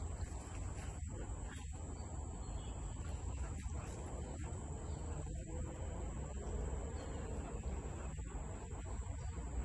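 Insects, such as crickets, trilling in one steady high-pitched tone, over a low background rumble.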